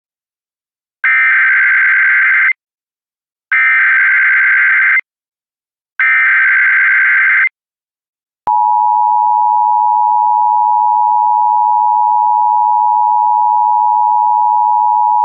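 Emergency Alert System tones for an AMBER Alert. First come three identical bursts of SAME digital header data, a buzzy warbling tone about a second and a half long each, with a second's gap between them. After a short pause the steady two-tone EAS attention signal begins and holds.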